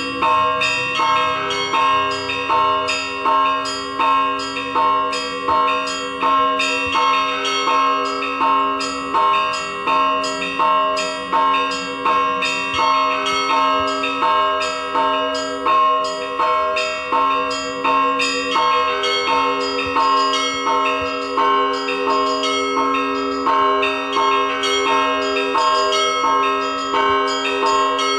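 Russian Orthodox church bells ringing: smaller bells struck in a fast, repeating rhythmic pattern over the held hum of larger bells.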